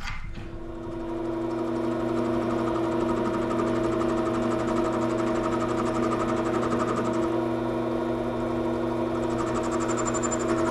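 Bench metal lathe's electric motor spinning up and then running at a steady speed, a constant hum of several tones that builds over the first couple of seconds and then holds level.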